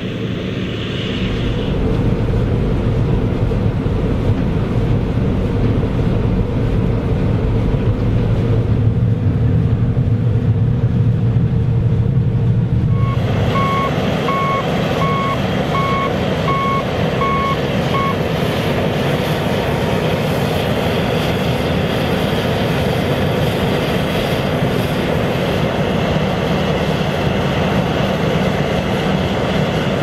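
John Deere S690 combine harvester's diesel engine and threshing gear running steadily while harvesting wheat. About 13 s in, the sound changes to the combine unloading grain through its auger, a fuller rushing noise, and a warning beeper sounds repeatedly for about five seconds.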